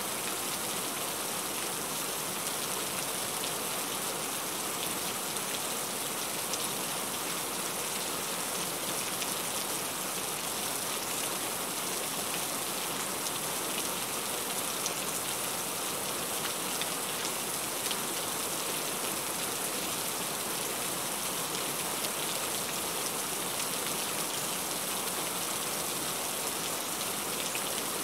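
Steady rain falling on a car's windshield and body, heard from inside the cabin as an even hiss with faint scattered drop ticks.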